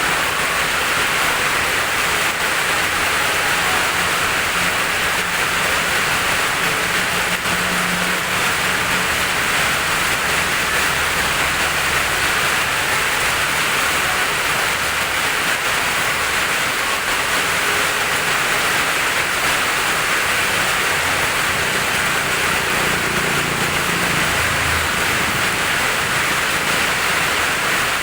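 Steady heavy rain falling, an even hiss of rain on surfaces. A faint low hum comes and goes beneath it.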